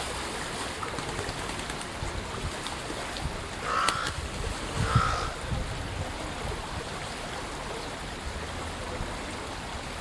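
Carrion crow giving two hoarse caws about a second apart, over a steady background hiss.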